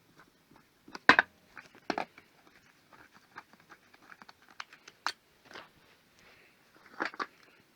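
Irregular clicks, knocks and snaps of plastic and metal parts being handled and pried off a scrap microwave oven during dismantling. The loudest knocks come about a second in, at two seconds, and as a cluster near the end.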